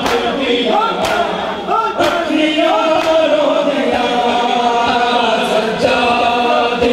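Crowd of men chanting a Punjabi noha (Shia lament) together. Sharp slaps land about once a second through the first few seconds: the mourners beating their bare chests in matam.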